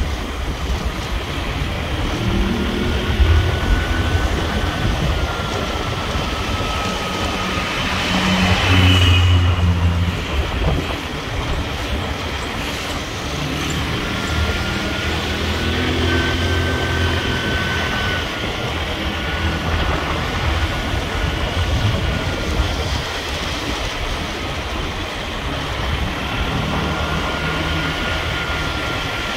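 A road vehicle driving, with steady engine and road noise and a thin whine that slowly rises and falls in pitch. A louder low rumble comes about eight to ten seconds in.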